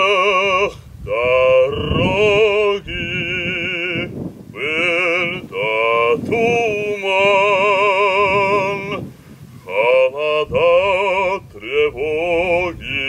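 A man singing in operatic style, holding long notes with a strong vibrato, in several phrases with short breaths between them.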